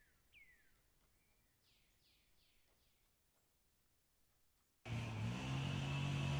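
Faint bird calls, a handful of short falling whistles, over quiet outdoor air. About five seconds in, a loud engine-like drone cuts in suddenly, rises a little in pitch and then holds steady.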